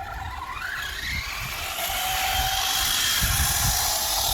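Traxxas Stampede 4x4 RC truck's electric motor whining up in pitch as it accelerates during the first second, then holding at speed, over a hiss of its tyres spinning on ice that grows louder.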